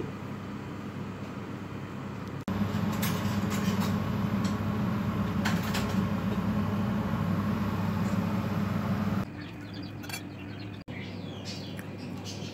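Steady low hum of an open refrigerator, with a few light knocks as a pickle jar is set on a shelf; quieter room noise before and after.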